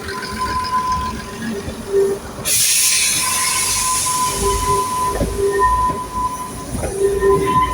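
Heritage railway train moving with its wheels squealing: a steady high squeal that comes and goes over a low rumble. A sudden loud hiss cuts in about two and a half seconds in and dies away within about a second and a half.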